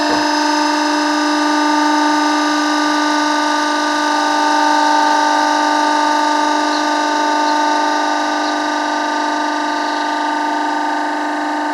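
Log splitter running steadily, a level drone with a constant whine and a few faint ticks about halfway through.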